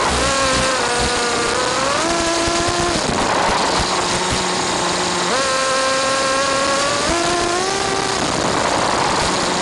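Nitro RC car's small two-stroke glow engine revving, its high pitch stepping up and down as the throttle opens and closes, with a couple of stretches where it drops back under the noise. A steady hiss of static from a wireless camera's audio link runs under it.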